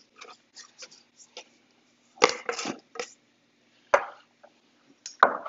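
Kitchen handling sounds of a spoon and glass spice jars: a few light clicks, then several louder knocks and clinks against the bowl and the wooden cutting board in the middle of the stretch.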